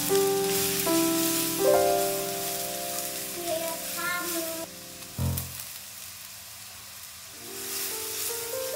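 Shallots sizzling in hot oil in a wok as a spatula stirs them, under background music. About five seconds in, the music drops away and the sizzle is heard on its own for a couple of seconds.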